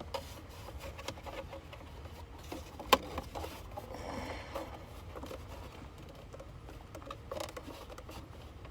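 Plastic trim under a car's dashboard being pried and worked at by hand: scattered rubbing and scraping with small clicks, and one sharp knock about three seconds in, over a steady low hum. The piece is stuck and won't come off.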